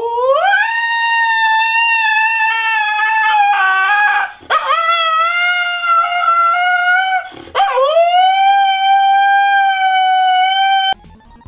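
Husky howling: three long howls, each rising at the start and then held on a steady pitch. The last one cuts off suddenly near the end.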